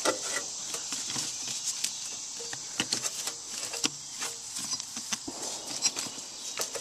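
Scattered light clicks, taps and rubbing as a rubber fan belt is worked by a gloved hand past the fan blades of a John Deere 35C mini excavator's diesel engine during a belt replacement.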